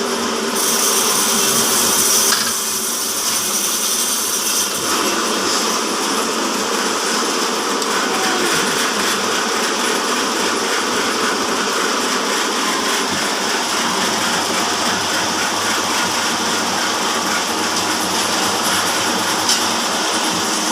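Horizontal band sawmill running steadily under a 5 HP electric motor, its blade sawing timber.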